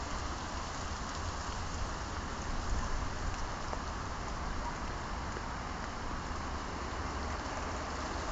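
Wet snow falling, a steady hiss like light rain, with a low rumble underneath.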